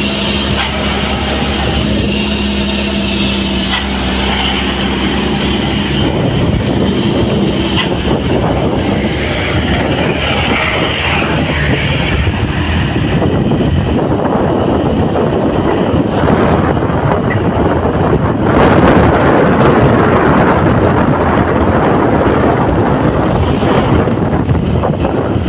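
Motorcycle riding on a road: engine running with wind rushing over the microphone. For about the first six seconds a steady engine drone is clear, then a louder, rougher rush of wind and road noise takes over.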